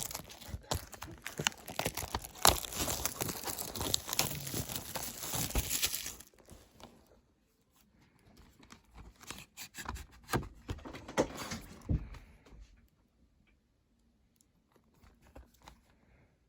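Plastic shrink-wrap being torn and crinkled off a Blu-ray case for about six seconds. A quieter stretch of crinkling and handling clicks follows, then it dies away.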